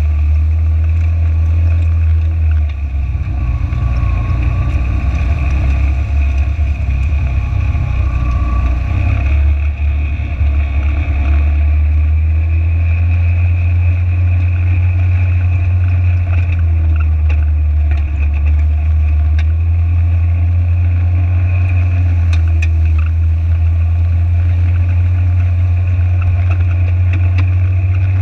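Side-by-side UTV engine running steadily under load while driving through a flooded creek, with water rushing and splashing against the wheels and body for the first several seconds. After that the engine settles into a steady drone.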